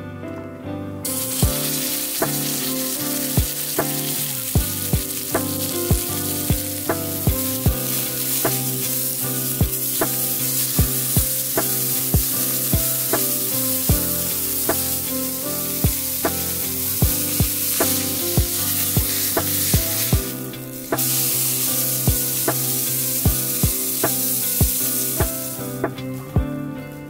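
A block of beef searing in hot oil in a frying pan over high heat: loud, steady sizzling that starts about a second in, drops out briefly about three quarters of the way through, and stops near the end. Soft plucked-guitar music plays underneath.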